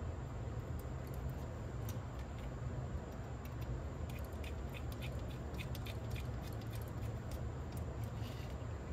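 Faint small clicks and ticks of a hand tool working on the small metal parts of a cassette tape transport mechanism, a run of them in the second half, over a steady low hum.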